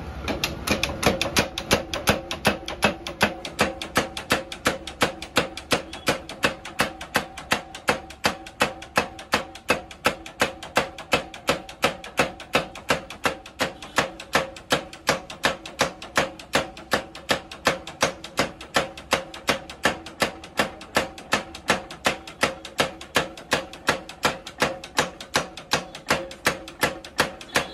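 45 kg Hercules mechanical spring power hammer pounding a red-hot steel bar during hot forging, in a fast, even run of blows at about three a second, starting right at the beginning.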